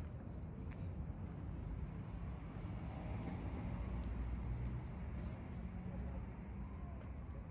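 A cricket chirping in short, evenly spaced, high-pitched chirps, over a steady low rumble.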